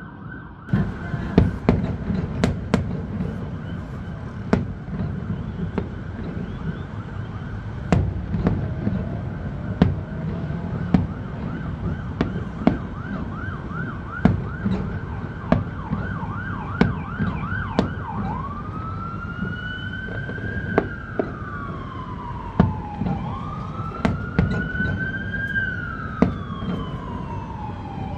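Fireworks going off in a steady string of sharp bangs over a low hum of city traffic. Partway through, an emergency vehicle siren joins: first a fast yelp, then about six seconds later a slow rising-and-falling wail.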